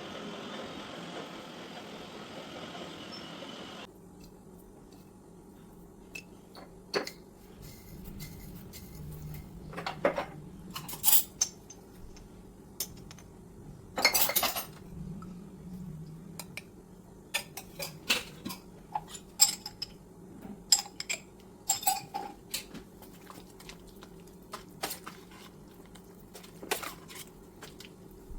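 Kitchen dishes and cutlery being handled, with scattered clinks and knocks of metal and crockery, a few of them sharp and ringing. A steady hiss plays under the first few seconds and cuts off suddenly.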